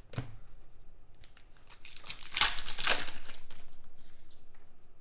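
Crinkling and rustling from a stack of trading cards being handled and flipped through, with a louder swell of rustling about two and a half seconds in.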